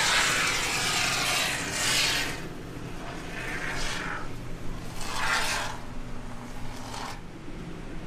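Aerosol can of expanding sealant foam hissing as foam is sprayed out: one long spray of about two seconds, then three shorter bursts.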